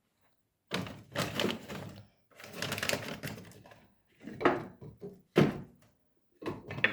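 A run of short clatters and rustles from objects being handled, in about five separate bursts with sharp knocks among them.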